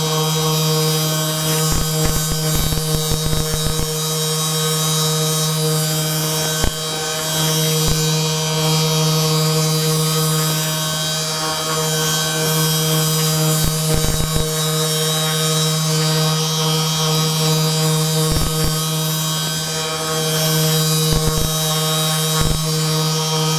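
A steady electric buzzing hum, like a small motorised device running, with scattered light clicks and knocks at irregular moments.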